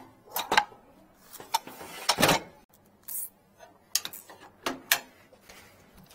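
A string of sharp knocks and clunks, about ten, as the hose reels of a high-pressure sewer jetter are handled. The loudest, longer clunk comes about two seconds in, and there is a short rustle just after three seconds.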